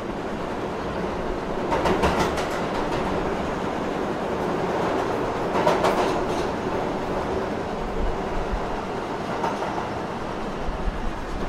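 Battery-powered Tomy Plarail toy train running on blue plastic track: a steady whirring, with bursts of rattling clicks about two and six seconds in.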